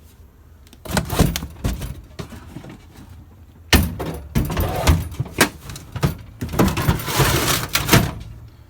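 Steel toolbox and metal tools being handled: a series of clanks and knocks, with a longer scraping rattle near the end.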